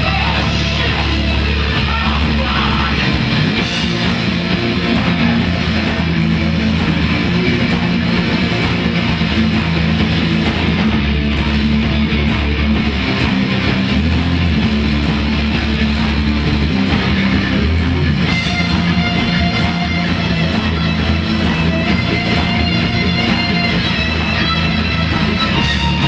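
Live rock band playing: electric guitars over bass guitar and drums, loud and steady, with held higher guitar notes coming in about two-thirds of the way through.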